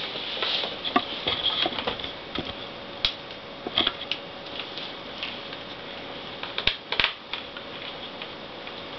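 Small screwdriver and fingers working a screw into a plastic laptop screen bezel: scattered irregular clicks, taps and light scrapes.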